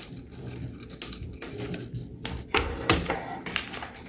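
A cleaning rod sliding and scraping inside an AR-15-type rifle barrel, with scattered metallic taps, the two sharpest about two-thirds of the way through, as the rod is worked along the bore to find the barrel's end.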